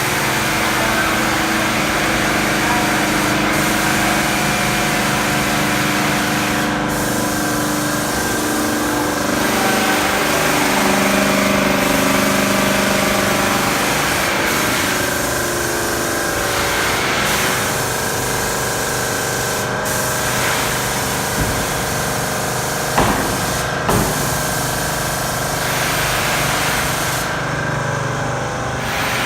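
Airless paint sprayer running: a steady motor-and-pump hum whose pitch shifts now and then, with a high spray hiss that drops out and comes back several times. Two sharp clicks come about two-thirds of the way through.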